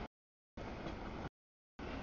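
Autorack freight train rolling past: a steady rumbling rush of wheels on rail, with no horn or bell tone in it. The audio keeps dropping out, so it comes in chunks of under a second split by half-second gaps of dead silence.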